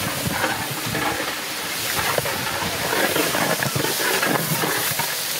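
Rice poured from a large aluminium bowl into a big pot of boiling water, splashing in over a steady hissing bubble of the boil.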